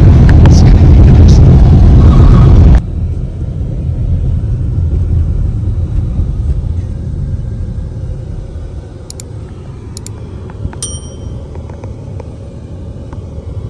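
Steady road and engine rumble inside a moving car, loud at first and then cutting abruptly to a quieter drive rumble about three seconds in. Near the end come two sharp clicks and a short ringing ding.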